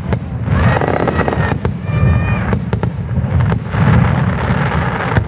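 Fireworks display: aerial shells bursting in sharp bangs over a constant low rumble, with two longer spells of hissing crackle, one starting about half a second in and one near the end.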